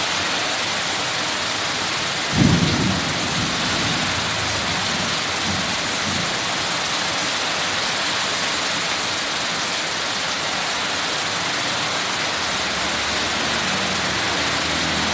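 Heavy rain pouring steadily, with a sudden clap of thunder about two and a half seconds in that rumbles away over the next few seconds. A low engine hum comes in near the end.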